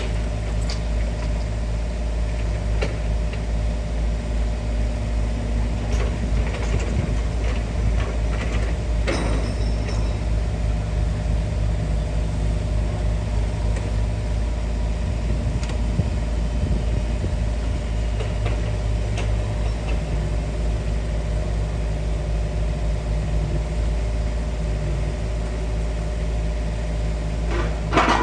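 A large engine running steadily at idle, a continuous low drone with a few faint clicks and knocks over it. A sharper knock comes right at the end.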